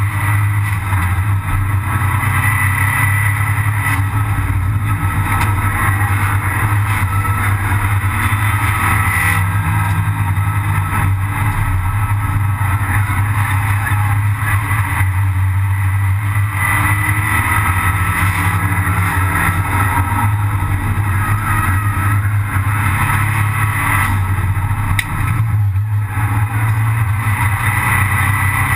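Abarth 500 Assetto Corse race car's turbocharged four-cylinder engine at racing speed, heard loud from inside the stripped cabin. It runs steadily at high revs, with the note dropping briefly a few times as the driver lifts or changes gear.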